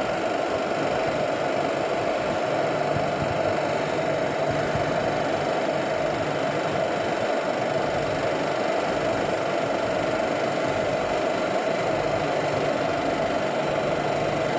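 Locomotive standing with its machinery running at idle, a steady, continuous drone, with a low hum that comes in twice and fades again.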